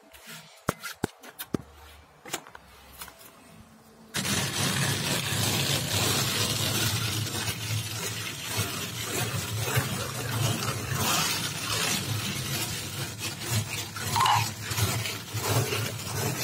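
Hand float rubbing grainy silicate-silicone decorative plaster on a facade: gritty scraping that starts abruptly about four seconds in and goes on unevenly. A few faint clicks come before it.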